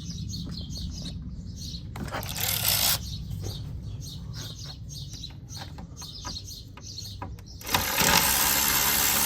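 Scattered light clicks and taps of tool work, then from about 8 s a power tool runs steadily for a couple of seconds, driving out a T30 Torx radiator mounting bolt.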